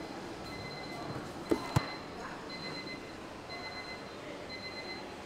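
Kitchen background noise with a faint high electronic beep repeating about once a second, and two sharp knocks about a second and a half in.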